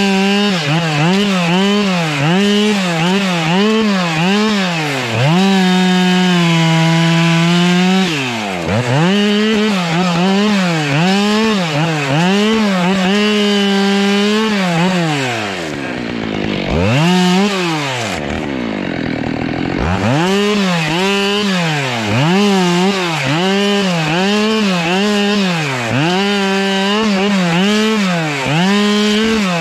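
Husqvarna two-stroke chainsaw limbing a felled conifer, revved up and down in quick blips, roughly three times every two seconds, as it cuts through the branches. It is held at full revs for about two seconds some six seconds in. About halfway through it twice drops nearly to idle and then picks up again.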